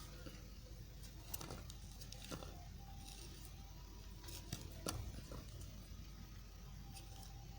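A blade cutting soft white soap: faint, scattered clicks and short scrapes a second or more apart over a low background hiss.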